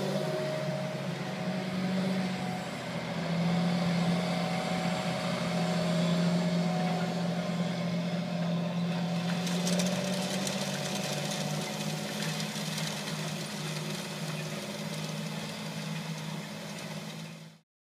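Large John Deere tractor towing an air seeder and disc drill through a field, its diesel engine running at a steady working pitch. A hiss joins in about halfway through, and the sound cuts off abruptly just before the end.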